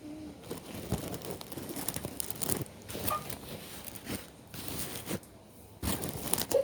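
Irregular rustling and crinkling, with a scatter of short knocks and clicks.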